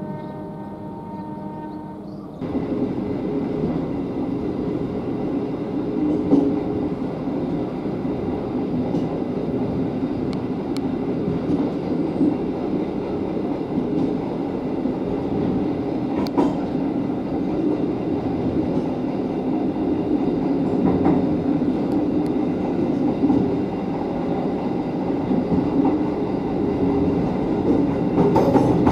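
The Sancaka stainless-steel passenger train running along the track: a steady rumble of wheels on rail, with a few sharp clicks scattered through it. It starts with a quieter steady hum made of several even tones, which is cut off abruptly about two seconds in when the running rumble begins.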